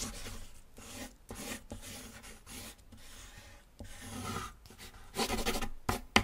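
Wooden graphite pencils scratching and scribbling on sheets of paper, in short, uneven strokes that grow louder near the end.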